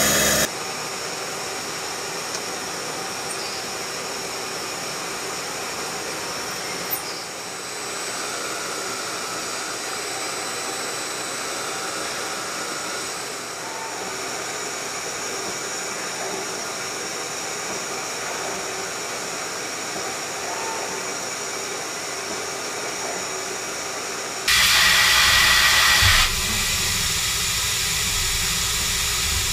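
CNC turning centre (Mazak QT-Compact 200MSY) machining inside its enclosure: a steady hiss and hum of spindle, cutting and coolant through drilling and synchronized tapping. About three-quarters of the way through, a louder rushing hiss lasts about two seconds, then the machine sound settles again.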